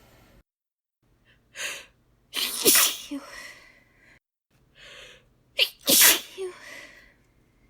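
A woman sneezing twice in an unstifled "hh'EESHhew!" style. Each sneeze starts with a sharp in-breath, followed by a loud, hissing burst. The first comes about two and a half seconds in and the second about six seconds in.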